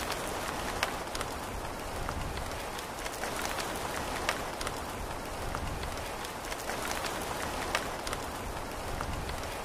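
Steady rainfall: a constant hiss of rain with many sharp, scattered drop ticks.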